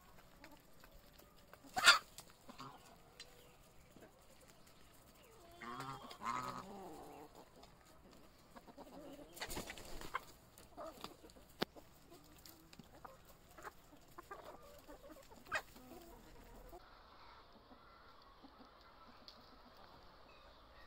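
A flock of chickens clucking quietly while feeding, with scattered small clicks. There is a sharp loud sound about two seconds in and a longer wavering call around six seconds.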